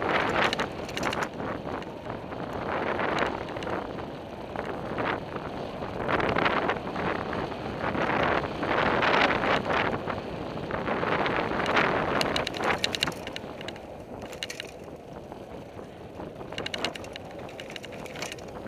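Fuji mountain bike descending dirt singletrack at speed: tyres crunching over the trail and the bike rattling with many sharp clicks and knocks over bumps, mixed with wind noise on the microphone. It is busiest in the middle and eases off near the end.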